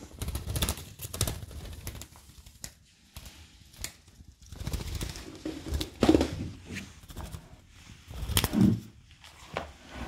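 Budgerigar flapping its wings in several irregular flurries while thrashing on a tile floor, its wings and claws brushing, tapping and scrabbling on the tiles. The bird cannot lift off the floor, a sign that something is wrong with it that the owner cannot explain.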